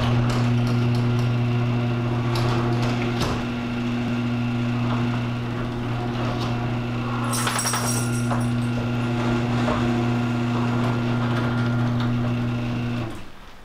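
Electric garage door opener running as the overhead door rises: a steady motor hum with scattered rattling clicks from the moving door, cutting off about a second before the end.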